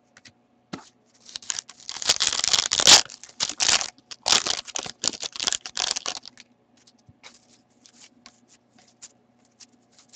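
A hockey card pack's wrapper being torn open and crinkled, in rapid bursts between about one and six seconds in, loudest near the start.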